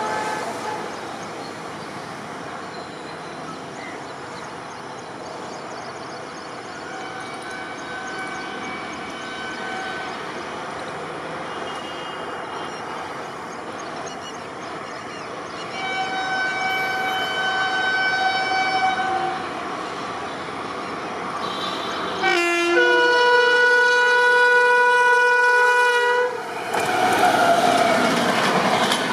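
A WAP-7 electric locomotive's horn sounds several times over a steady hiss as the train approaches: two shorter blasts, then the loudest, held for about four seconds. Near the end the locomotive passes close by with loud rumbling wheels and rail clatter.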